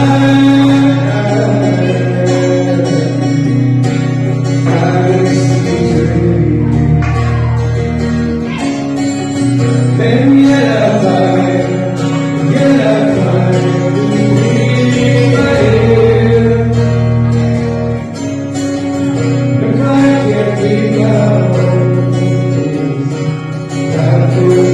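A solo singer performing live with an acoustic guitar, the voice and guitar amplified through a PA speaker.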